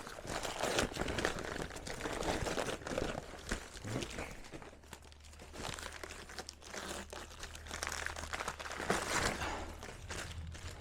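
Packing paper being crumpled and rustled by hand while unwrapping motorcycle exhaust pipes, in irregular bursts of crinkling that ease off midway and pick up again.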